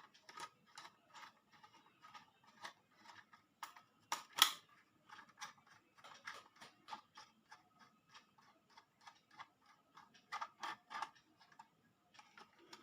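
Faint, fairly regular small clicks and taps, about three or four a second, from hands and a tool working the wiring and terminals of a plastic electrical switch board, with a sharper click about four seconds in and a cluster of louder ones near the end.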